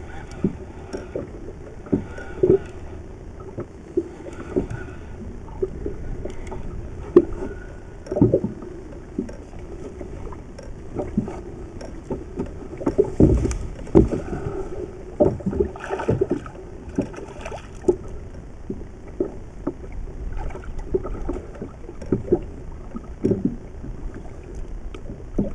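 Water slapping against the hull of a small boat on the open sea, with irregular knocks and thumps from the boat throughout.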